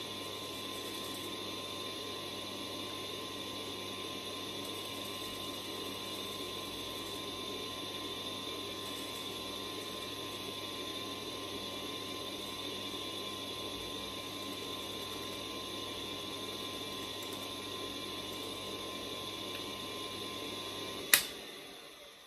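Motor-driven watchmaker's lathe running steadily, its electric motor and belt drive giving a constant hum and whine. About 21 seconds in comes one sharp click; the motor hum stops and the sound dies away as the lathe spins down.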